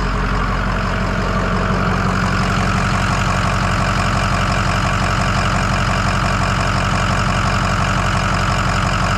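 Ford 6.0 L Power Stroke V8 turbo-diesel idling steadily with an even diesel clatter.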